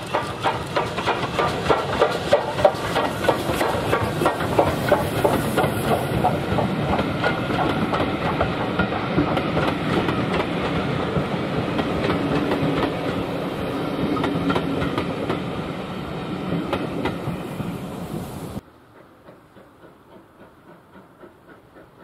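Passenger coaches of a heritage train rolling past, their wheels clicking in a fast, even rhythm over the rail joints. The sound cuts off suddenly about three-quarters of the way through, leaving only a faint distant sound.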